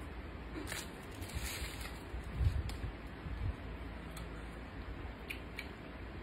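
Fingers picking through a wet, saucy bamboo-shoot dish, giving faint sticky clicks and rustles, with a couple of soft low thumps in the middle.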